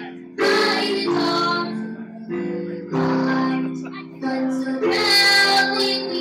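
A young girl singing the national anthem into a microphone over guitar accompaniment, in long held notes with short breaks between phrases.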